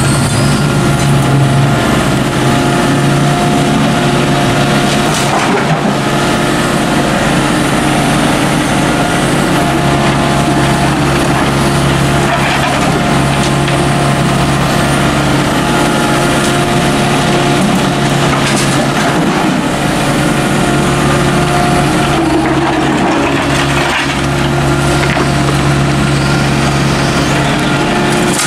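Volvo mini excavator running steadily at working speed, its diesel engine giving a constant, even drone with a few faint knocks as the operator works the hydraulic controls.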